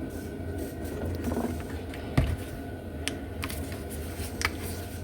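Scattered light clicks and knocks of small objects being handled, the sharpest about two seconds in, over a steady low hum.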